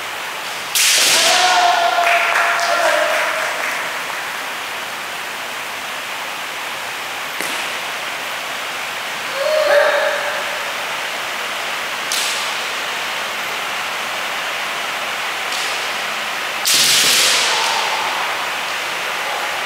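Kendo sparring: sharp cracks of bamboo shinai striking armour, three times across the stretch, each with the strikers' held kiai shouts, over a steady background hiss.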